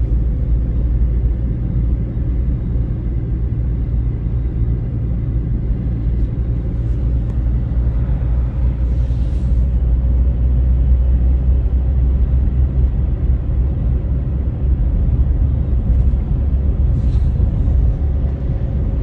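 Steady low road-and-engine rumble inside a moving car's cabin.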